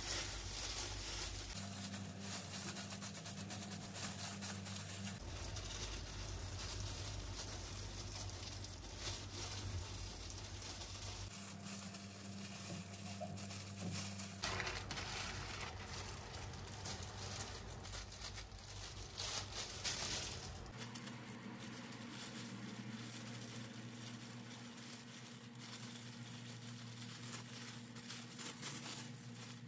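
Thin disposable plastic gloves and cling film crinkling and rustling as hands knead and wrap soft mochi dough, an irregular run of soft crackles.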